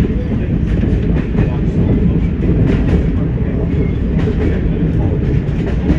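Class 104 diesel multiple unit running along the line, heard from the driver's cab: a steady low rumble of its underfloor diesel engines and wheels on the rails, with scattered clicks from the track.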